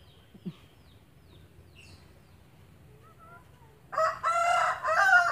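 A rooster crows loudly about four seconds in, one long crow in several connected parts, after faint chirps of small birds.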